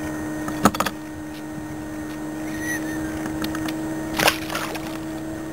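Steady low hum broken by two short clusters of sharp knocks and clicks, one just under a second in and one about four seconds in.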